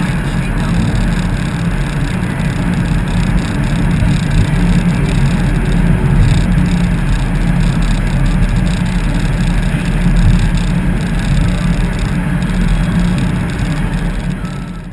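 A car driving, with steady engine, road and wind noise that is heaviest in the low end. It falls away near the end.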